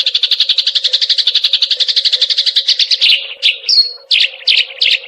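Eurasian tree sparrow (burung gereja) giving a rapid trill of about ten chirps a second, then breaking into a few separate chirps and a short whistle near the end.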